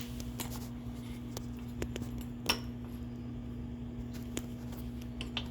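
Light metallic clicks and clinks from the wheel-lifter mechanism of a CNC inspection machine being worked by hand, with one sharper ringing clink about two and a half seconds in, over a steady low hum.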